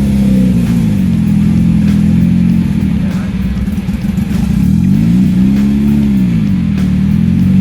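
Off-road 4x4's engine running and revving up and down, pitch rising and falling, with background music underneath.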